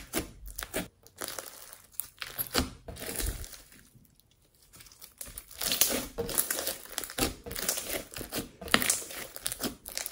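Hands squishing and stretching glossy slime mixed with foam beads: a run of sticky crackles and small pops, easing off into a short lull about four seconds in, then picking up again.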